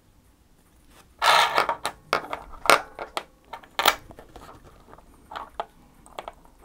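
Hop-up chamber being fitted onto the new inner barrel of an Army Armament R604 gas blowback airsoft pistol: a short scrape a little over a second in, then a series of sharp clicks and taps of small plastic and metal parts seating together.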